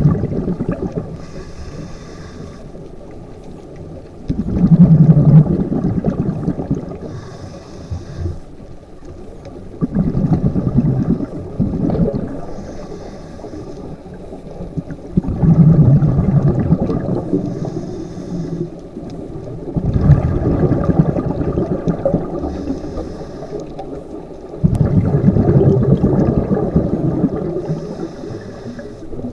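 Scuba diver breathing through a regulator underwater: a rumble of exhaled bubbles about every five seconds, each followed by the higher hiss of the inhale through the demand valve, about six breaths in all.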